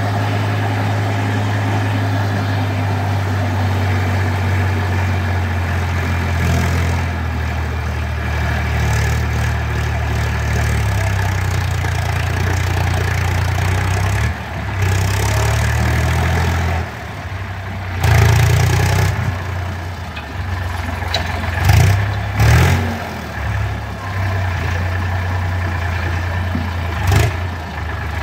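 Eicher 5660 tractor's diesel engine running steadily while it drives the hydraulics that raise a tipping trailer to dump soil. In the second half the engine note becomes unsteady, with several short loud surges.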